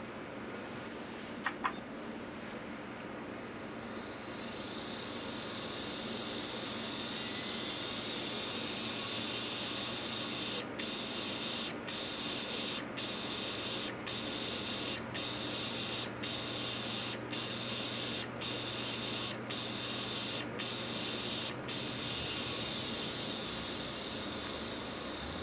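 Hard disk from an I-O DATA HDL2-G2.0 NAS making an abnormal loud, high-pitched hissing noise after power-on, cut by brief regular breaks about once a second, then fading away: the sound of the drive failing, after which it stops spinning. Two short clicks come just before the noise starts.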